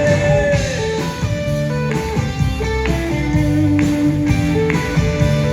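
Live worship band playing an instrumental passage between sung lines: electric guitar lead notes over bass and a steady beat.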